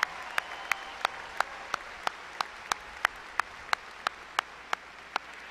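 A large audience applauding, a steady patter of many hands. Over it, one pair of hands claps close to the microphone in an even rhythm of about three claps a second.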